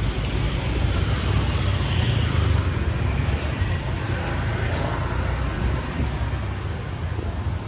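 Busy street ambience with motorbikes and scooters passing close by, over a steady low rumble.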